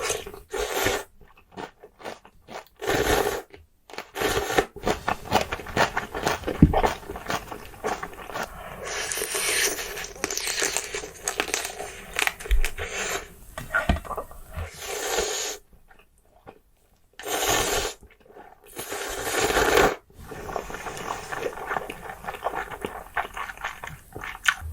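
Close-miked eating of blue crab ramyeon: crunching, chewing and scraping in irregular bursts, broken by a few brief silences.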